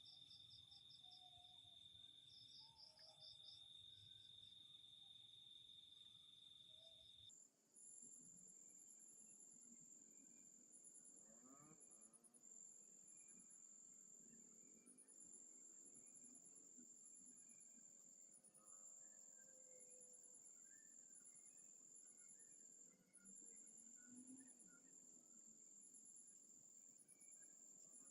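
Faint, steady trilling of insects: a continuous high trill with quick pulsed chirps above it. About seven seconds in it changes abruptly to a higher-pitched trill with bursts of rapid chirps.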